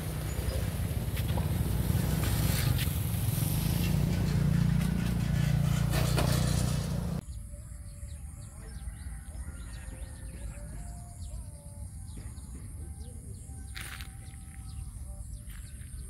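Motorcycle engine and road rumble, loud and low, cut off abruptly about seven seconds in. Then a quieter countryside background: a steady high insect drone with scattered short bird calls.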